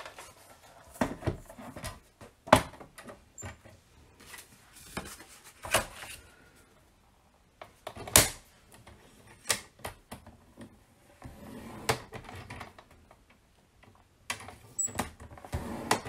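Scattered clunks and taps of a plastic paper trimmer being set down on a craft mat and cardstock being slid into place against it, the loudest knock about two and a half seconds in.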